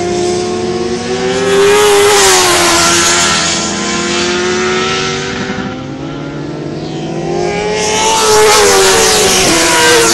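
Racing motorcycle engines running hard on a race track, their pitch rising and falling through the gears. The sound dips in the middle and swells again near the end as bikes come by.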